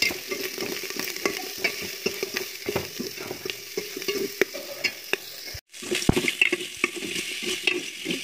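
Metal spoon scraping and stirring pieces of meat frying in an aluminium pot, with steady sizzling under many short scrapes against the pot. The sound cuts out for a moment about five and a half seconds in.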